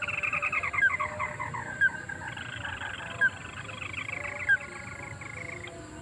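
Ruddy-breasted crake calls: a fast trill of repeated notes falling in pitch, then a long run of rapid repeated notes that stops just before the end, with three sharp, louder single notes spaced about a second and a half apart.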